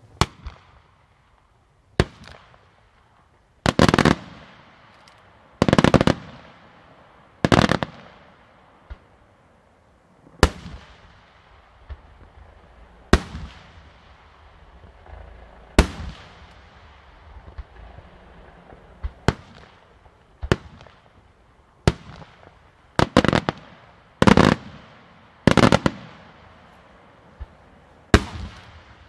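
Aerial firework shells bursting: a series of loud bangs every one to three seconds, each with an echoing tail, some arriving as quick clusters of several reports.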